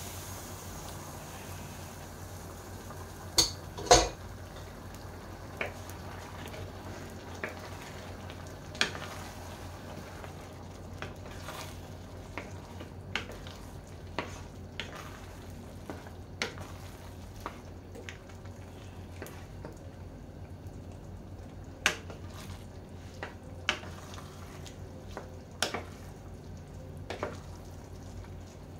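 A wooden spoon stirring pasta in tomato sauce in a stainless-steel pan, knocking irregularly against the pan, loudest twice about four seconds in. Underneath, the sauce sizzles steadily.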